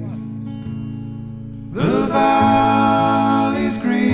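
Background music: a song with acoustic guitar, swelling louder about two seconds in.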